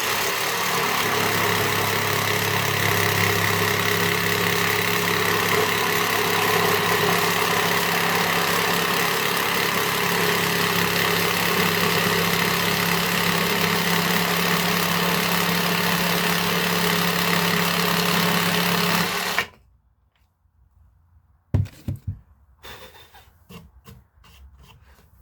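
Cordless jigsaw sawing through a wooden board with its pendulum action set to 0 for straight, clean cutting, running steadily for about nineteen seconds and then cutting off abruptly. A few sharp knocks follow near the end as the saw or the cut wood is set down.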